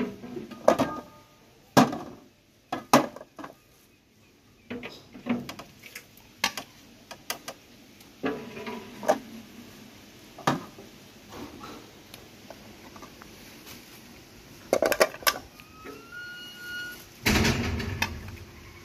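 Ladle, bowls and a metal serving tray clinking and knocking as soup is ladled from an aluminium pot into bowls: a string of separate sharp clinks and knocks, some ringing briefly. Near the end a short burst of rumbling handling noise.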